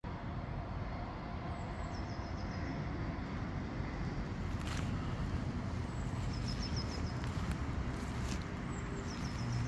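Outdoor ambience: a steady low background rumble, with a small bird singing a short phrase of quick high notes three times, a few seconds apart.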